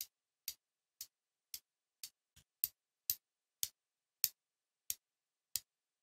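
Umburry hex diamond haptic coin in cupronickel being clicked in the hand: its two magnetised halves twisted apart and snapping back together. About eleven sharp, bassy clicks, roughly two a second.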